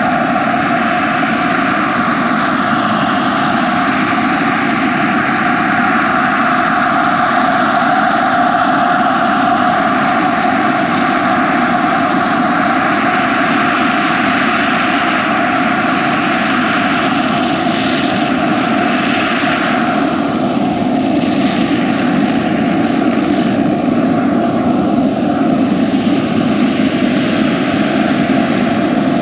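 JetCat PHT3-XL model gas turbine of a large-scale RC Bell 430 helicopter running steadily, with the main rotor turning, as it hovers low and sets down. A steady high whine sits over the rotor noise.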